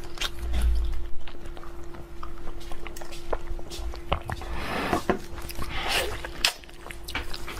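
Close-up eating sounds: biting and chewing food, with many short wet mouth clicks and smacks over a steady hum.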